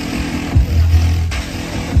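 Electronic dance music with a heavy kick drum on a steady beat and a low bass note held for about half a second in the middle.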